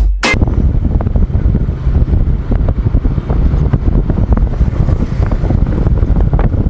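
Wind buffeting the microphone of a camera on a moving TVS Victor motorcycle, a loud, steady rumble with no clear engine note.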